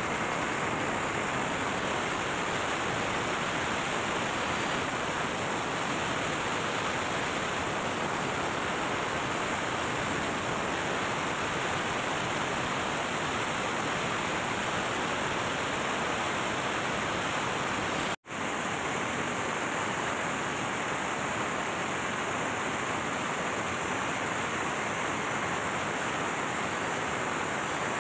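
MAN B&W auxiliary diesel generator engine running under test, a dense steady noise with no change in pitch. The sound cuts out for an instant about two-thirds of the way through.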